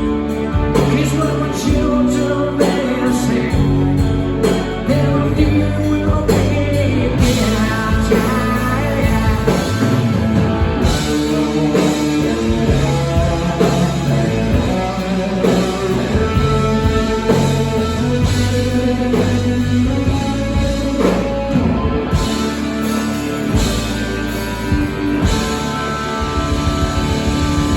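Live rock band playing, with guitars and drums, and singing at times.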